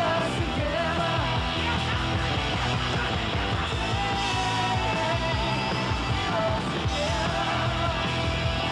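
Rock music with a vocal melody over a steady beat.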